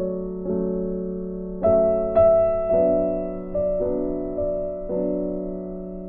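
Background music: a soft piano playing slow notes and chords, a new note struck about every half second to second and left to ring out.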